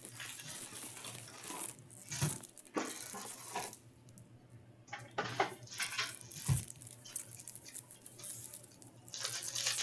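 Cardboard hobby box of hockey card packs being opened and handled, the foil-wrapped packs rustling and crinkling as they are pulled out and stacked on a glass counter, with two dull knocks along the way.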